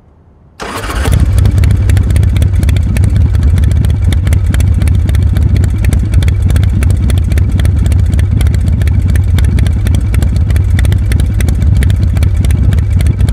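A motorcycle engine running steadily and loudly, a fast clatter of firing pulses that starts about half a second in.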